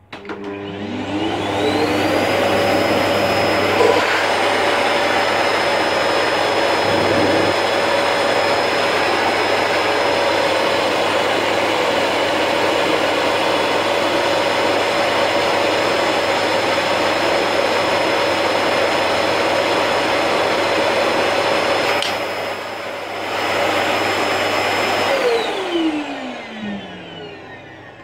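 Electrolux UltraFlex bagless canister vacuum cleaner, run with its cyclone bypassed, switched on and spinning up with a rising whine, then running steadily while drawing air through the hose and airflow indicator. Its level dips briefly a few seconds before it is switched off, and the motor winds down with a falling whine.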